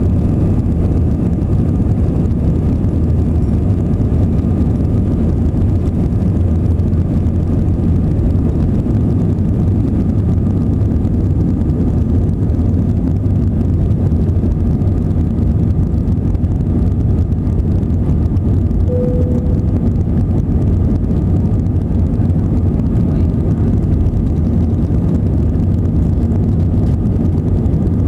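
Airbus A319-111's CFM56-5B turbofan engines at take-off thrust, heard from inside the cabin over the wing: a steady, loud deep rumble with a faint whine on top, through the end of the take-off roll, lift-off and initial climb. A brief faint tone sounds about two-thirds of the way in.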